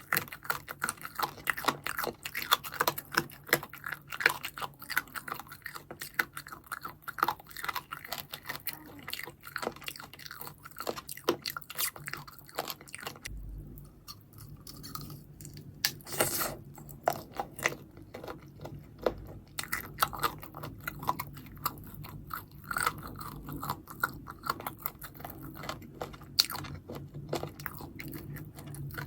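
Close-miked eating sounds: crunchy bites and wet chewing, dense at first. After a short lull about halfway through, one louder crunch comes, then slower chewing.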